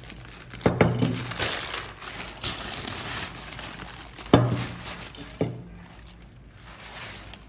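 Crumpled newspaper and a plastic carrier bag crinkling and rustling as wrapped clay pots are handled, with four sharp knocks among them, the loudest about four seconds in.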